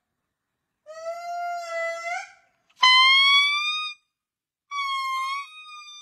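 Indri lemur singing: three long wailing calls, each held on a steady pitch and sliding upward at the end. The middle call is the loudest and starts abruptly.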